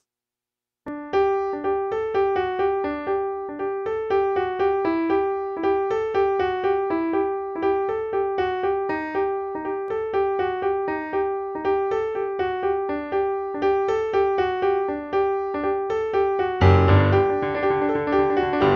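Background music: a quick, even run of repeated keyboard notes starting about a second in, with a low bass part joining near the end.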